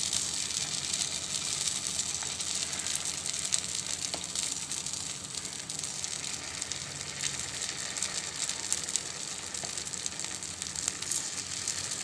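Hot oil sizzling and crackling steadily in the cups of a kuzhi paniyaram pan as idli batter is ladled in and starts to fry.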